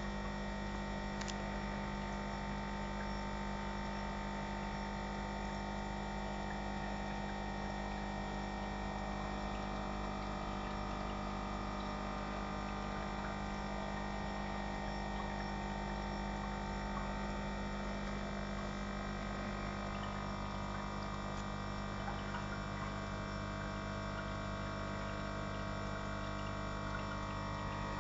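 Aquarium pump or filter humming steadily, with water running into the tank.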